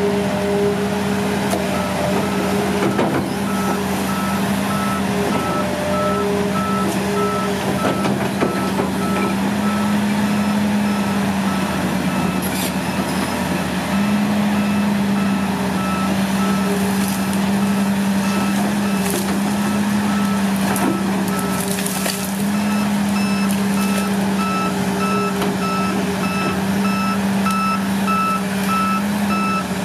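Hitachi ZX200 excavator's diesel engine and hydraulics running steadily under load, the hum shifting slightly in pitch as the bucket pushes at and digs out a tree. The machine's warning alarm beeps continuously over it, and a few sharp cracks break through now and then.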